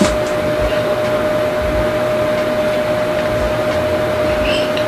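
A steady, loud hiss with a constant mid-pitched hum running through it. A faint click comes right at the start.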